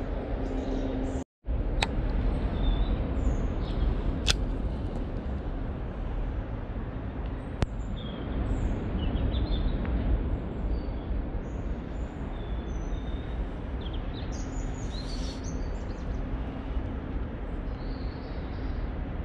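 Birds chirping over a steady low outdoor rumble, with a few sharp clicks and a brief dropout about a second in.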